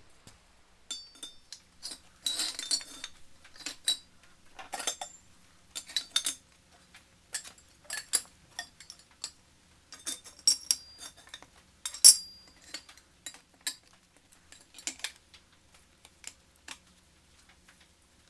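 Irregular light metallic clinks and knocks of small hard parts being handled and set down, one sharp clink louder than the rest about two-thirds of the way through.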